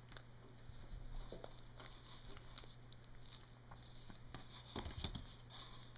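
Faint, soft rustling and small clicks of a banana peel being pulled open by hand, scattered irregularly, over a steady low hum.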